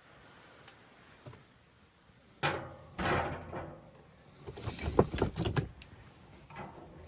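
Handling noises: a sudden scrape or rustle about two and a half seconds in, then a cluster of sharp knocks and clicks around five seconds in.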